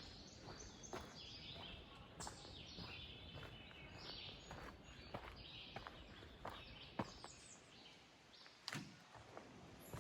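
Footsteps on a woodland trail, one every second or less, with several birds singing and chirping around.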